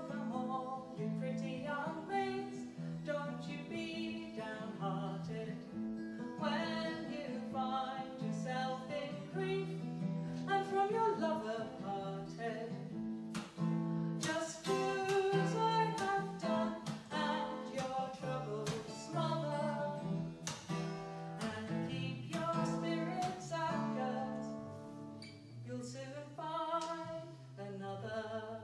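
Acoustic guitar strummed as accompaniment while a woman sings a traditional English folk song, recorded live. The music dies away near the end.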